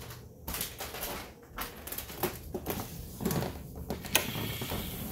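A sliding patio door being unlatched and slid open: a run of irregular clicks and knocks, with a sharp click about four seconds in.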